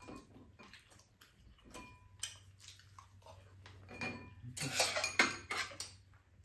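Spoons and chopsticks clinking and scraping against bowls and a frying pan during a meal, with scattered light clicks. There is a brief ringing tone about two seconds in and a louder, noisier clatter around five seconds in.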